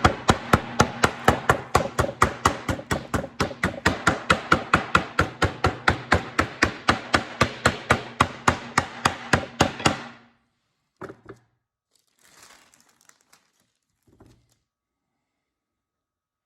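Rapid, even tapping on glued wooden wedges, about four knocks a second for some ten seconds, knocking the pieces of a segmented bowl ring down flat; a few single softer knocks follow.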